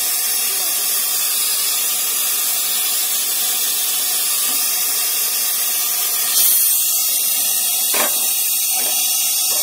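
Compressed air hissing steadily as it exhausts from an air-driven MK5 rock drill boring a 110 mm hole. There is a brief louder gust about six seconds in and a single knock about two seconds later.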